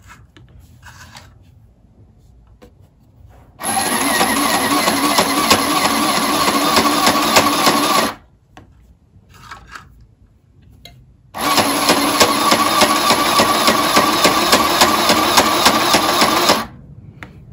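Compact electric mini sewing machine stitching fabric in two runs of about four and five seconds: a steady motor whir with rapid needle ticks. It stops for about three seconds in between, while the cloth is repositioned.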